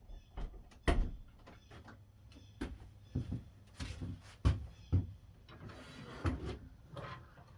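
Handling noise around a miter saw and its power cord: a string of irregular knocks and clicks, the loudest about a second in and again about four and a half seconds in, with a short rustling scrape near six seconds.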